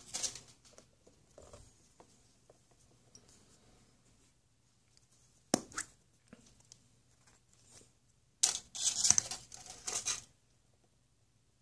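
Hands handling a plastic surprise-egg capsule: light rustling at first, a sharp double snap about five and a half seconds in as the capsule pops open, then about two seconds of loud crinkling and tearing of wrapping near the end.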